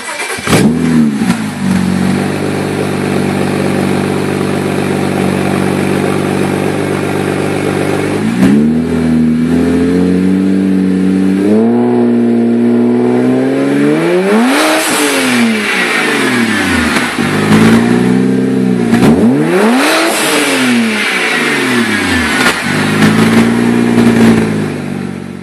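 BMW 135i turbocharged inline-six through an RPI dual exhaust with catless downpipes, idling and then revved several times. There are short blips about a third of the way in, two big revs that climb and fall back about halfway and again later, and a smaller blip near the end.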